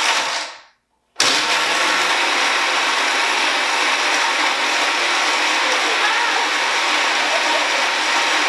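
Countertop blender running at full speed, blending a thick smoothie: a loud, steady whir. A short first burst fades out, then about a second in it starts again and runs evenly.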